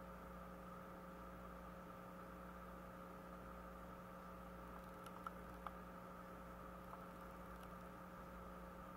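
Near silence: a steady low electrical hum, with two faint clicks about five seconds in.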